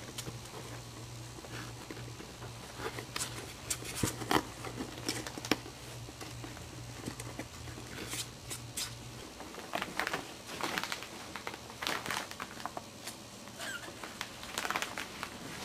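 Maltese puppies scuffling and playing, with scattered small taps, scratches and rustles of paws and bodies moving about.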